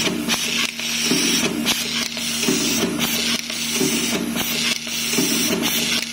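Fully automatic nylon cable-tie machine at work: a steady hum from its vibratory bowl feeder under a hiss, with a sharp mechanical clack roughly every second as the handheld tying gun wraps and cuts a tie around the cable.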